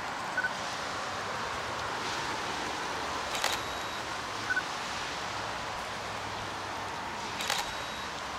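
A camera taking a series of photos: a short double beep, then the shutter clicks about three seconds later. This happens twice, over a steady hiss.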